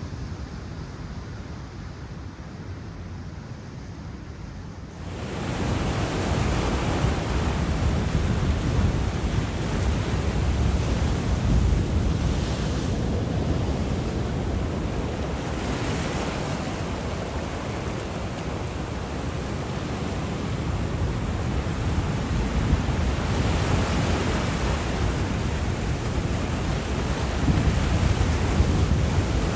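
Pacific surf breaking on the shore, a continuous wash of noise that swells every few seconds as waves crash. It starts as a quieter low rumble, then jumps suddenly louder about five seconds in, with wind on the microphone.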